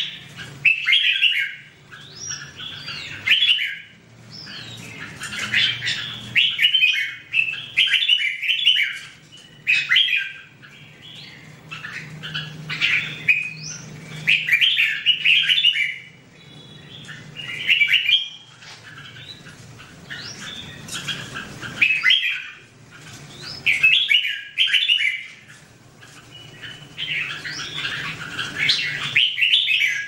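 Red-whiskered bulbuls singing: quick chirping phrases, one burst after another every second or two, with short pauses between.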